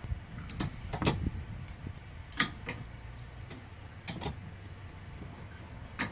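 Low, steady road rumble inside a moving RV, with scattered sharp clicks and rattles from the cabin.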